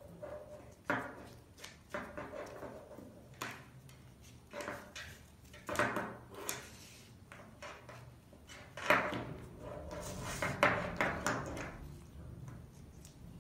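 A dog collar's fabric strap being handled and slid through its plastic buckle: irregular rustling and sliding bursts with small clicks, busiest in the second half.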